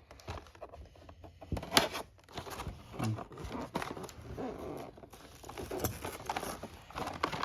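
Toy packaging being handled and pried open: irregular clicks, taps and rustling of plastic and cardboard.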